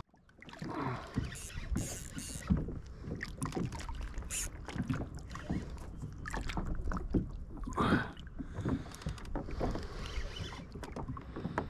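Water lapping and sloshing against a plastic fishing kayak's hull, with scattered knocks and clicks from handling the rod and reel.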